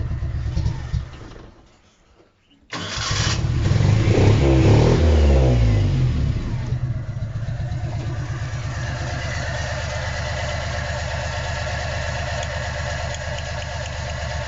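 Nissan 1400 bakkie's four-cylinder engine idling rough with a misfire, dying away about two seconds in, then restarted with a burst of rising revs before settling back into a steady, uneven idle. The misfire is on cylinders 1 and 4, most likely from faulty spark plugs.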